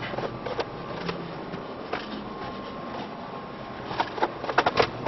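Kitchen knocks and clatter over a steady background noise, with a quick run of sharp knocks near the end.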